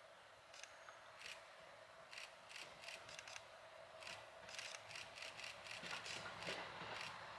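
Faint scattered sharp clicks, then, from about six seconds in, the rising rumble of the KiHa 183 series diesel train approaching.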